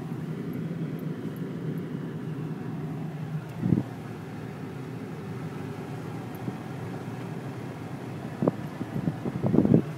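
A car running with a steady low hum of engine and road noise, broken by a short louder burst about four seconds in and another near the end.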